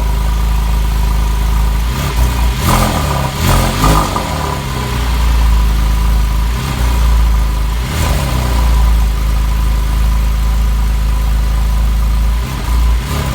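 Porsche 997 Carrera 4S flat-six exhaust idling, with short throttle blips that rise and fall about two to four seconds in and again around eight seconds and near the end.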